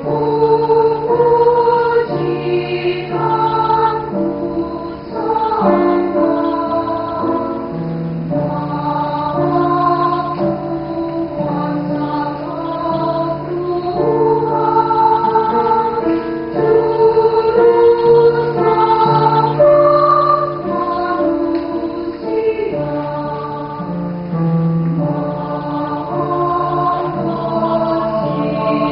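Mixed choir of men's and women's voices singing a sacred song in several-part harmony, moving together through held chords.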